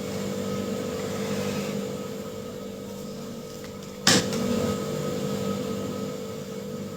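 Steady mechanical hum of an appliance or fan, with one short sharp click or knock about four seconds in.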